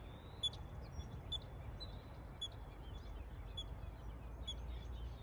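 Small birds chirping: a string of short, high chirps at uneven intervals, over a steady low rumble.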